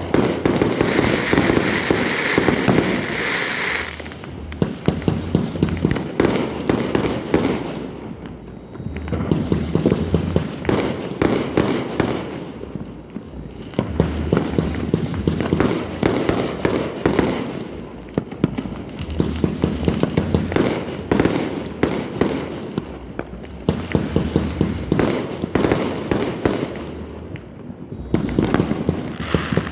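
Many fireworks going off at once: a dense stream of overlapping bangs and crackling that swells and eases in waves every few seconds.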